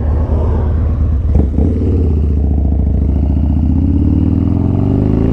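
2003 Harley-Davidson Dyna's V-twin engine running under way and accelerating, its pitch rising steadily through the second half, with a single clunk about one and a half seconds in.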